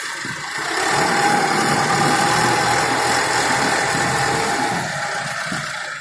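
Diesel engine of an AIMIX AS2.6 self-loading concrete mixer running steadily as the machine drives past. It swells about half a second in and eases off near the end.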